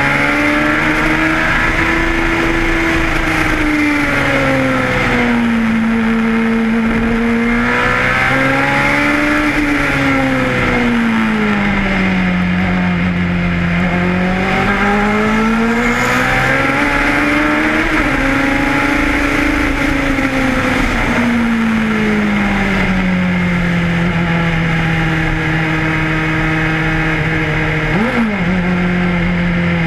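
Ford-Cosworth DFV V8 of a Lotus 91 Formula One car, heard from on board at racing speed. Its pitch rises and falls again and again as the car accelerates and slows through the corners, with a quick sharp dip and rise in pitch near the end.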